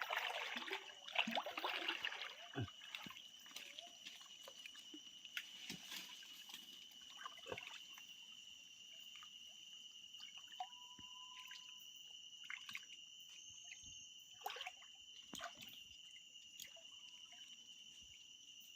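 Shallow water splashing and dripping as it is worked by hand, busiest in the first two seconds, then scattered drips and small knocks, over a steady high-pitched tone.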